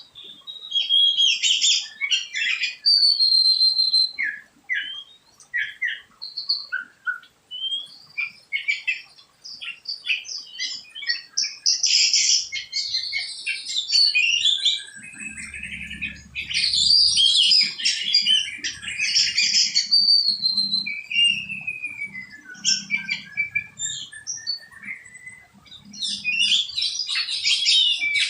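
Songbirds chirping and calling together: quick chirps, short trills and whistled notes that slide up and down in pitch, busiest near the end.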